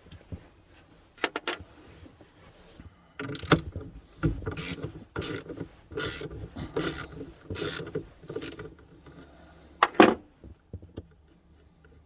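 A ratchet socket wrench working a nut on a battery terminal: a run of short rasping ratchet strokes, about two a second, from about three seconds in to about eight and a half seconds, then one more stroke near the end.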